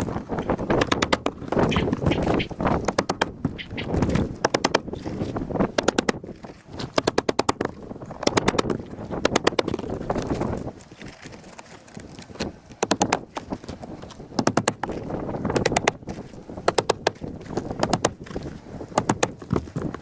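Hammer driving roofing nails through asphalt shingles into the shed roof deck: runs of sharp, rapid blows with short pauses between them.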